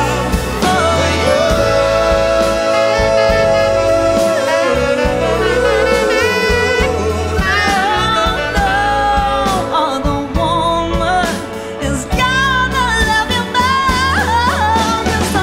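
Orchestra and band playing a slow pop-soul ballad, with singing and saxophone over strings, bass and drums; the singing carries no words the recogniser could make out.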